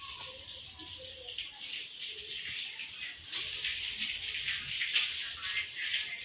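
Water running from a garden hose over a wet concrete floor while a stiff stick broom scrubs it, with scratchy sweeping swishes that come thicker in the second half.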